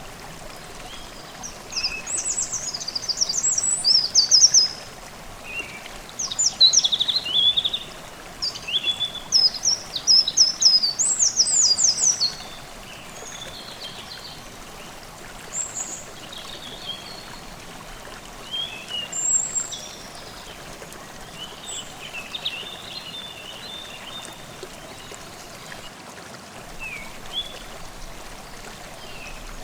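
Forest stream babbling steadily, with a songbird singing quick, rapidly repeated falling phrases for the first ten seconds or so, then only scattered short chirps.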